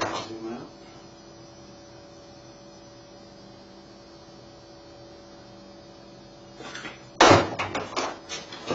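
Tools and a heavy electrical cord being handled on a countertop: a few knocks at the start, then a faint steady electrical hum, then a burst of loud clattering knocks near the end.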